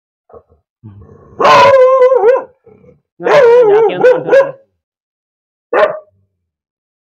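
Caged mixed-breed dog barking aggressively at a stranger: two loud, drawn-out barks with a wavering pitch, each about a second long, then one short bark near the end.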